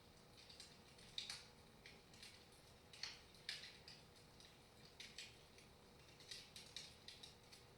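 Wood fire in a fireplace crackling softly: irregular small pops and snaps, several a second, the loudest just after one second and at about three seconds in.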